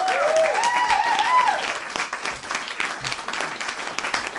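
Canned crowd applause sound effect: dense clapping throughout, with cheering voices rising and falling over the first second and a half.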